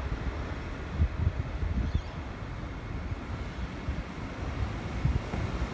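Wind buffeting the microphone over a low, uneven outdoor rumble, with a few louder gusts about a second and two seconds in.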